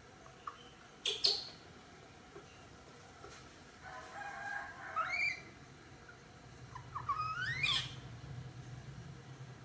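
Baby monkey squealing while being rubbed dry in a towel: a short shrill cry about a second in, a few rising calls around four to five seconds in, and a longer rising squeal about seven seconds in.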